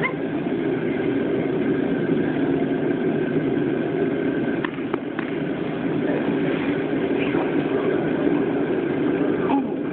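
Steady low mechanical drone, with two brief clicks about halfway through and a faint falling whine near the end.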